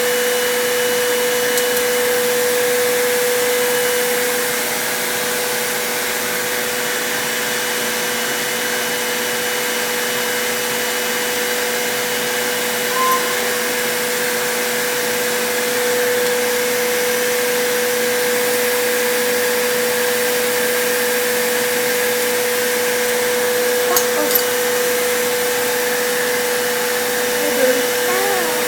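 Vacuum cleaner running steadily, a constant hum with a hiss over it, with a few brief clicks about two-thirds of the way through.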